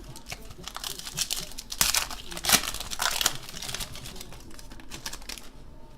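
Trading-card pack wrapper being crinkled and torn open, a dense crackle that is loudest in the first three and a half seconds and then eases to lighter handling.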